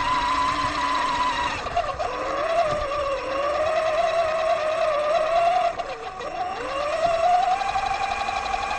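Axial Yeti XL RC truck's brushless electric motor and gears whining as it drives. The pitch drops sharply about two seconds in, dips again around six seconds, then rises as the truck speeds up.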